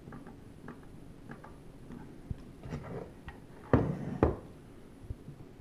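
Light scattered clicks and taps of small hardware being handled while a hard drive is fitted into an external enclosure, with two louder knocks about half a second apart a little past the middle.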